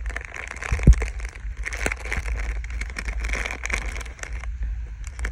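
Packaging rustling and crinkling as a parcel is unpacked by hand, with a dull thump about a second in.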